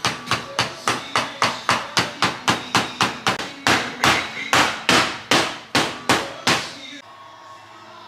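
Rapid hammer blows on a wooden door, about four a second, slowing slightly in the second half and stopping about six and a half seconds in.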